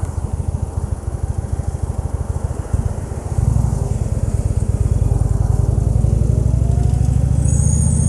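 A 2014 Indian Chief Vintage's Thunder Stroke 111 V-twin engine chugging at low speed through a turn. About three seconds in it opens up and runs louder as the bike accelerates, rising in pitch.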